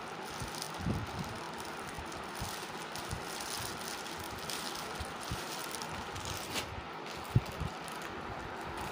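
Plastic courier mailer and clear plastic garment packet rustling and crinkling as they are handled, over a steady background hiss, with a sharp tap about seven seconds in.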